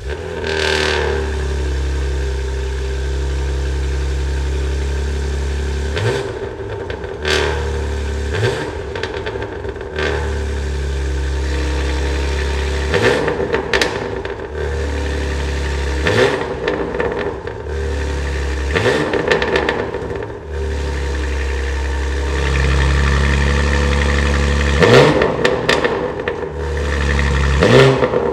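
BMW G80 M3's S58 twin-turbo straight-six idling while stationary and blipped to about ten short revs, through a DCE Parts titanium equal-length resonated midpipe with catless downpipes. The biggest revs come near the end.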